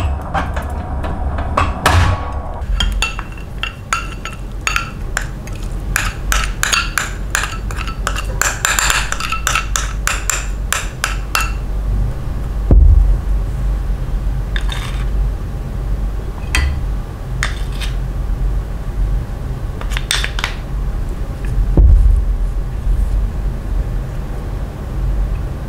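Spoons and ceramic dishes clinking and scraping as seasonings are spooned over raw pork pieces in a ceramic bowl. A quick run of clinks lasts several seconds, then single clinks come every second or two, over a steady low hum. It opens with chopsticks stirring pork in a steel pot of water.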